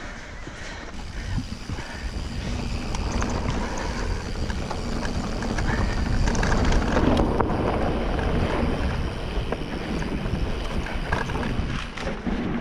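Wind buffeting the microphone of a riding mountain biker, with the rumble of tyres rolling over a rough trail and small scattered ticks and rattles. The rush grows louder through the middle.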